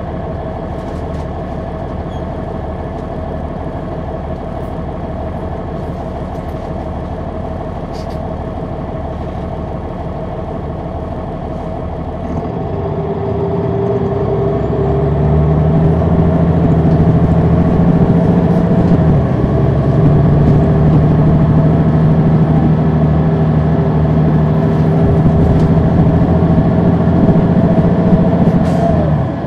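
Caterpillar C9 diesel engine of a 2003 Neoplan AN459 articulated bus, running steadily and then, from about twelve seconds in, pulling away and growing much louder into a steady drone. Partway through the pull the drone briefly dips and drops back; it falls off just at the end.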